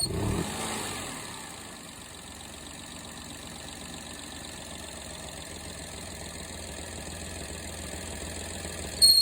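Daihatsu Tanto engine running at idle, a short louder sound in the first half second and then a steady running noise; the car's abnormal noise was traced to a worn water pump at nearly 150,000 km.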